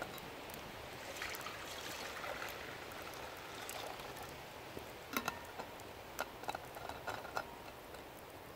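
Water poured from a flask into a steel cooking pot, trickling for about three seconds. A few short sharp clicks and taps follow.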